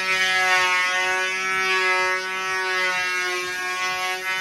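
Makita cordless power planer running with a steady high whine, its pitch sagging slightly now and then as the blades cut a back bevel along the edge of a kitchen end panel.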